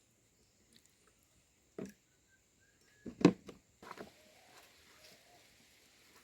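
Kitchen utensils knocking and clattering during food preparation: a single knock, then a quick cluster of three sharper knocks about three seconds in and one more a moment later, followed by a faint steady hiss.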